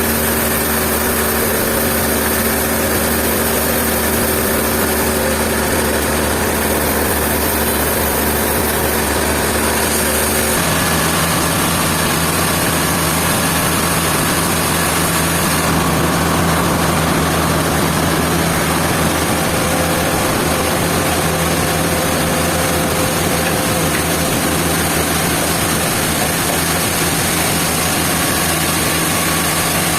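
Sawmill machinery running steadily, its pitch dropping to a lower hum about ten seconds in.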